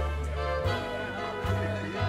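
Music with a bass line stepping from note to note about every two-thirds of a second under sustained pitched tones.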